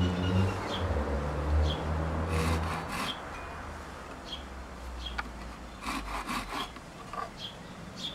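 Small handsaw cutting a slot into a wooden twig, back-and-forth strokes. The strokes are heavier for the first three seconds, then lighter and sparser as the cut reaches the chamber.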